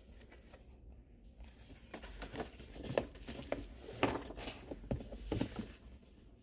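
Hands handling a hardcover book and its paper dust jacket: quiet at first, then a run of soft paper rustles and light taps from about two seconds in.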